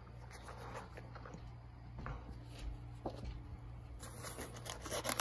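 Faint rustling and a few light taps of paperback manga volumes and a cardboard shipping box being handled with gloved hands, busier near the end, over a low steady hum.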